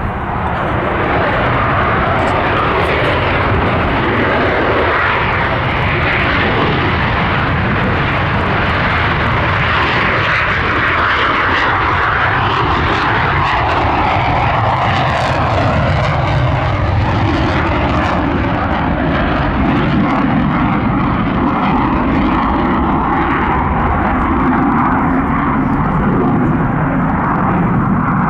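JASDF F-4EJ Kai Phantom taking off, its twin J79 turbojets running at takeoff power through the roll, liftoff and climb-out. The jet noise is loud and continuous, and its pitch drops as the aircraft passes about halfway through.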